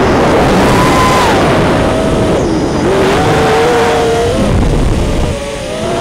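Brushless motors and propellers of a 5-inch FPV racing quadcopter (four T-Motor F40 III 2306 2750KV motors), heard from the onboard camera: a high whine whose pitch climbs and sags with the throttle, over heavy rushing air noise, easing off briefly near the end.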